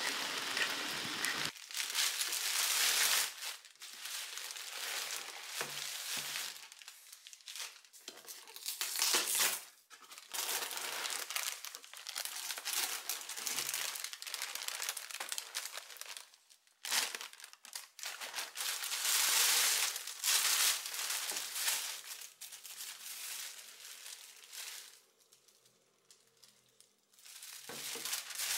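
Thin plastic carrier bags and a clear plastic cereal bag rustling and crinkling as they are handled and opened, in irregular bursts with short pauses. A brief steady outdoor hiss comes before the handling starts.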